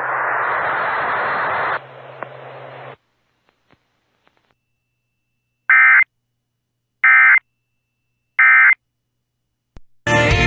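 Hissing noise with a low hum on a radio feed, dropping in level about two seconds in and cutting off at three. After a pause come three short Emergency Alert System end-of-message data bursts, about 1.3 seconds apart. Near the end a click is followed by the station's audio cutting back in.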